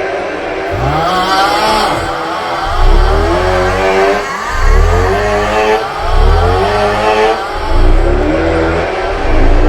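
The 'Aughhhh' snoring meme: a man's loud, drawn-out groaning 'aughhh' repeated over and over, about one every second and a half. From about three seconds in, each groan carries heavy booming bass.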